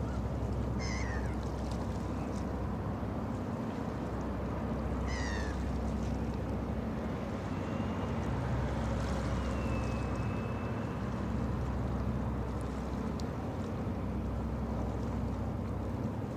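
Steady low drone of a roll-on/roll-off cargo ship's engines across the water, with two short gull calls falling in pitch, about a second and about five seconds in.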